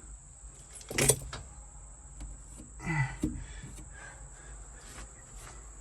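Faint steady hum of a Kato HD308US-7 excavator idling, heard inside its cab, with a sharp knock about a second in and a few lighter knocks and clicks from handling in the cab.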